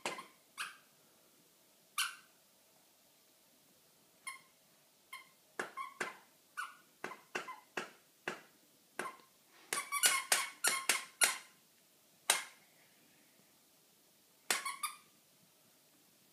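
Puppy giving short, squeaky yips while play-fighting. The yips are scattered through, with a quick run of them about ten to eleven seconds in.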